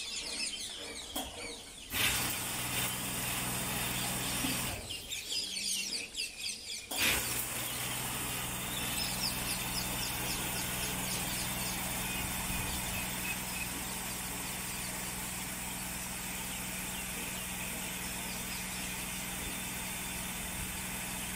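Automatic water-mist sprinkler: ceiling nozzles spraying mist with a pump humming beneath. It starts about two seconds in, stops for about two seconds, then comes back on and runs steadily.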